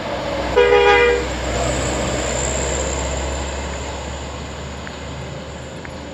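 A truck horn gives one short blast about half a second in, over the low rumble of a heavy truck's diesel engine pulling up a steep bend; the engine rumble slowly fades.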